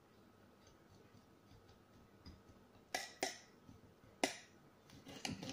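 A kitchen knife cutting a tomato on a glass cutting board: sharp clicks as the blade strikes the glass, two close together about three seconds in, one a second later, and a quick run of clicks near the end.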